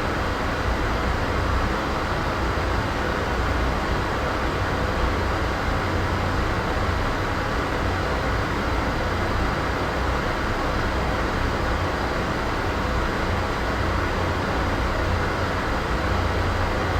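Steady background noise: an even rushing hiss over a deep low rumble, unchanging in level, with no distinct events.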